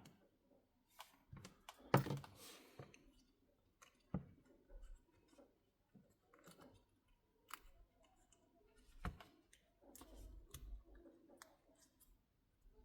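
Faint, irregular small clicks and taps of tools and small phone parts being handled while fitting parts into an iPhone X, with a few sharper clicks about two, four and nine seconds in.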